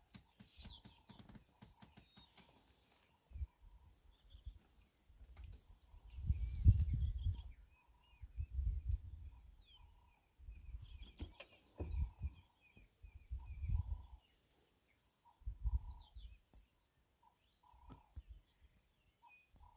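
Birds chirping and calling in the bush, with soft low rumbles coming and going every second or two. The strongest rumble comes about six seconds in.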